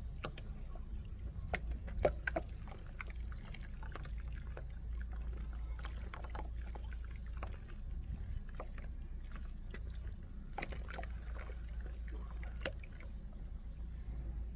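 Dry multani mitti (Fuller's earth clay) being crumbled and crushed: irregular crisp cracks and crunches, thicker about two seconds in and again around ten to eleven seconds, over a steady low hum.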